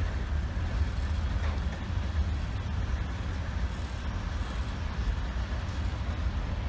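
Freight train of tank cars and hopper cars rolling past, with a steady rumble of wheels on the rails.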